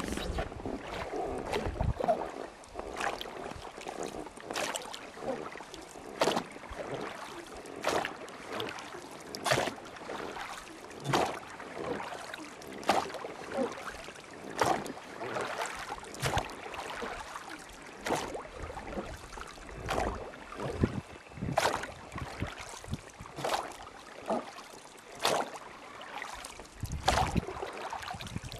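Rhythmic splashing in water, one stroke about every second and a half, over a steady wash of moving water.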